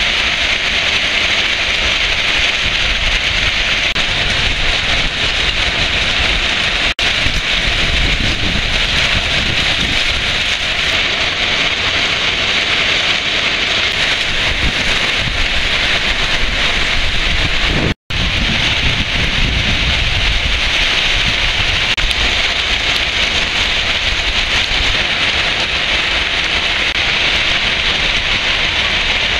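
Heavy rain pouring down onto paving and roofs in a thunderstorm: a loud, steady, dense hiss with a low rumble underneath. The sound breaks off for an instant twice, about a quarter of the way in and again a little past the middle.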